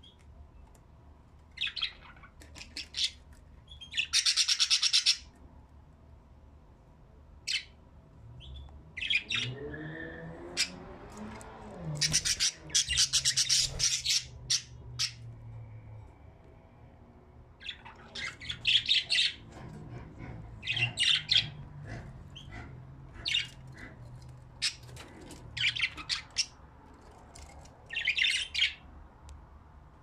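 A group of budgerigars chirping and chattering in short bursts of high, rapid warbling, with brief pauses between the bursts.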